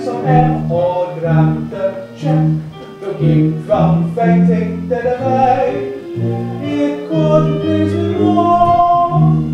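A song performed live on stage: voices singing a melody over an instrumental accompaniment that plays a bass note about twice a second.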